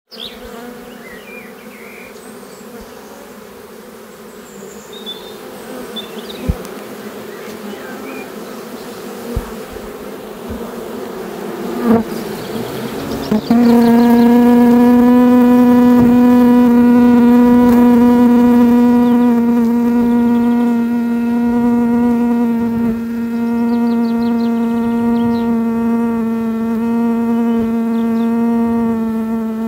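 Honeybee swarm buzzing: a softer steady hum with a few knocks during the first half, then, from about 13 seconds in, a much louder steady buzz of bees crowding at the hive entrance.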